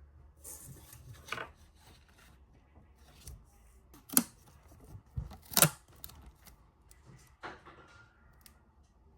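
Paper being handled and cut with scissors for a paper squishy: a rustle of paper, then a few separate sharp snips.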